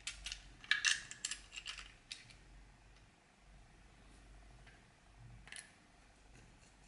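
Hard 3D-printed plastic toy parts clicking and clacking together as they are handled and fitted by hand. A quick run of clicks comes in the first two seconds, then one more click later on.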